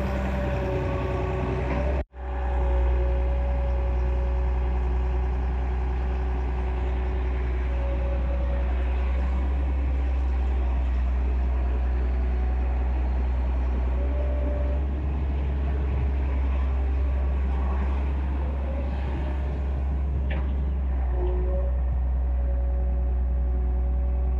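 Excavator engine running steadily with a deep, continuous drone. The sound cuts out abruptly for an instant about two seconds in, then resumes.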